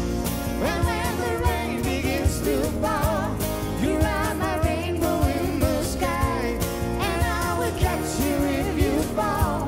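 Live acoustic band playing: a twelve-string and a six-string acoustic guitar strummed together, with bass and hand percussion keeping a steady beat. A male lead voice sings over it with vibrato.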